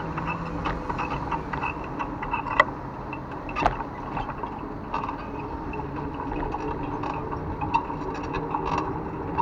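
Bicycle riding on city streets: steady rolling noise from tyres and traffic, with frequent small clicks and creaks from the bike, typical of the creaking saddle. Two sharper knocks stand out, about two and a half and three and a half seconds in.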